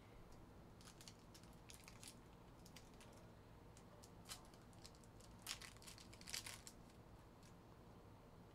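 Faint crinkling and ticking of a foil trading-card pack wrapper being torn open and its cards slid out, with small clusters of crackles about five and a half and six seconds in.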